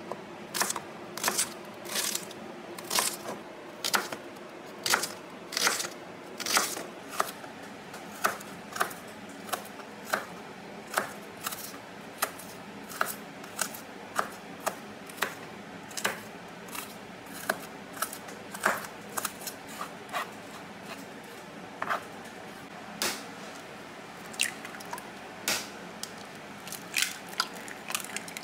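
Serrated kitchen knife chopping and dicing an onion on a cutting board, sharp knocks about twice a second.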